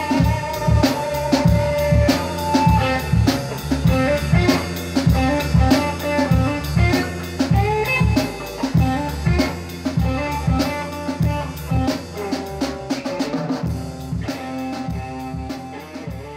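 Outro music: a band track with a steady drum-kit beat, fading out near the end.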